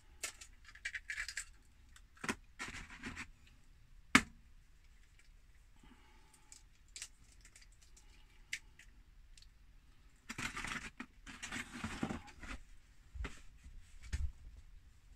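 Eggs being cracked on the rim of a mixing bowl and broken into flour: a few sharp taps, the loudest about four seconds in. Rustling and a couple of knocks follow near the end.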